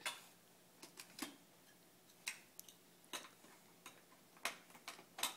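Plastic Duplo bricks clicking and knocking together as they are picked up and pressed onto a build: about ten light, irregularly spaced clicks.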